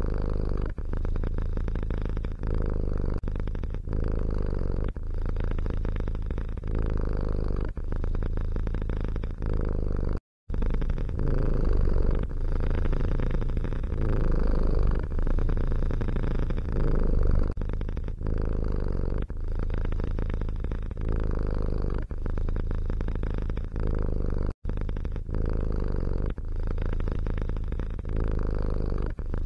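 Domestic cat purring steadily and deeply, in an even rhythm of about one cycle a second as it breathes in and out. The purr cuts out completely for a moment twice, once about a third of the way in and once near the end.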